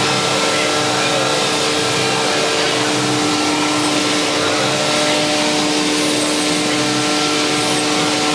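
Kitamura Mycenter HX400iA horizontal machining center running: a steady whine with two held tones over an even hiss.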